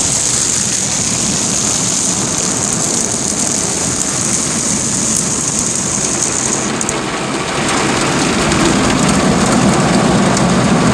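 Tunnel car wash heard from inside the car: water spraying and soft brushes washing over the body and windshield as a steady loud rush. A high hiss stops about seven seconds in, and a louder, deeper spray of the rinse comes in about a second later.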